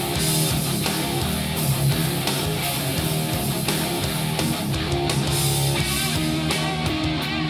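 Instrumental guitar-driven rock music, with electric guitar and bass, played back through small powered desktop studio monitors and recorded in the room.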